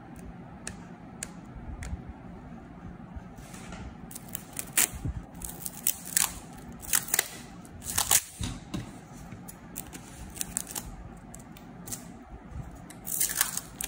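Clear packing tape being peeled off its roll in short tugs: a run of sharp, irregular crackly rips, a few faint ticks at first, then thicker from a few seconds in and again near the end.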